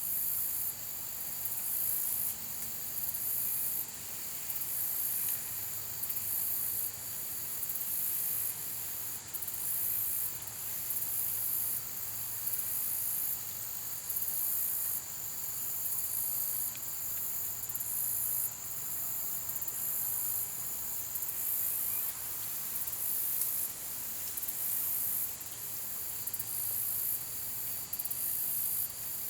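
Chorus of night insects, such as crickets, used as sleep sound: shrill high-pitched pulses repeating about once a second over a steady high trill, unbroken throughout.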